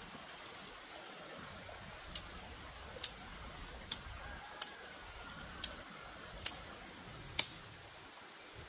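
Seven sharp clicks, about one a second, over a steady hiss; the last click is the loudest.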